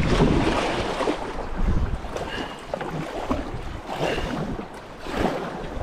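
Wind buffeting the microphone over moving river water, heaviest in the first two seconds, then easing into softer swells. Two faint, short high chirps come near the middle.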